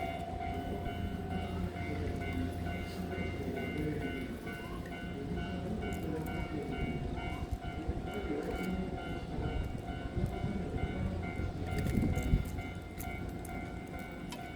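Electric train at a station: a steady low rumble with several thin, steady high tones over it, swelling a little louder about twelve seconds in.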